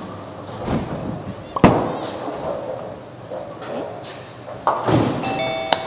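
Bowling alley: a ball rolling down the lane with a low rumble, then a loud sharp crash into the pins about a second and a half in. Another rumble and impact come near five seconds, followed by a few short electronic chime tones near the end.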